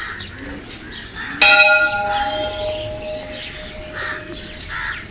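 A hanging temple bell struck once about a second and a half in, ringing on with several clear tones that fade slowly.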